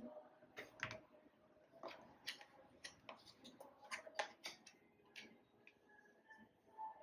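Faint, irregular clicks and taps of unpacking by hand: a coiled charging cable set down on a desk and fingers working in a small white cardboard box to lift out a paper documentation folder. About a dozen light clicks, which stop about five seconds in.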